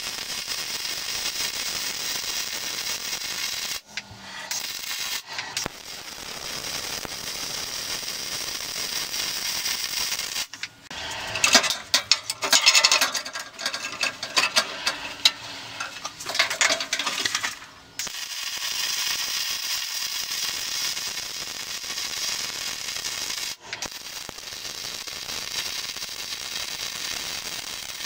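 MIG welding arc crackling steadily as push plates of 1/8-inch steel plate are fully welded out onto black iron pipe, in runs of several seconds with brief stops between them. In the middle, for several seconds, the arc gives way to louder, irregular metal knocking and scraping as a steel hold-down clamp is moved on the welding table.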